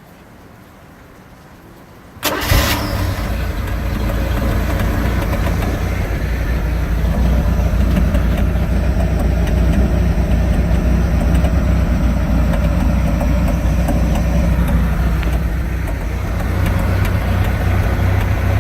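MerCruiser 140 3.0-litre four-cylinder marine engine starting about two seconds in and settling into a steady idle, with faint ticks through the running sound. This is the clicking the owner cannot identify, heard from the rear of the motor despite a new coupler, outdrive and gimbal bearing.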